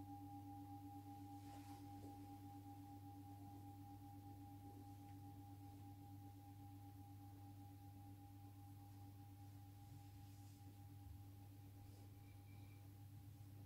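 A singing bowl ringing out, two steady tones, one low and one higher, fading slowly and very faint, over a low steady hum.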